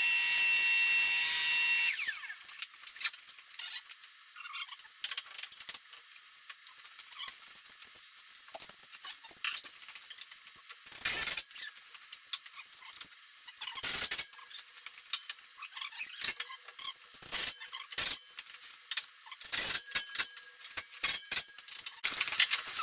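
A cordless drill runs with a steady whine for about two seconds and stops. Scattered knocks, taps and clinks of tools and stair treads being handled follow.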